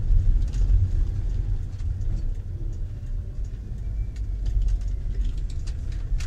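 Steady low rumble of a camper van's engine and tyres, heard from inside the cab while driving slowly.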